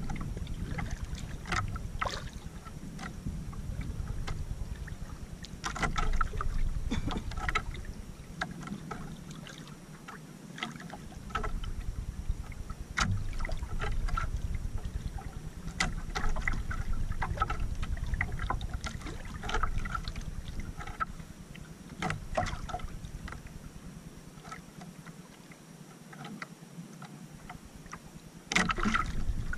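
Water lapping and splashing against the hull of a small outrigger canoe in irregular bursts, over a low rumble that drops away twice for a second or two.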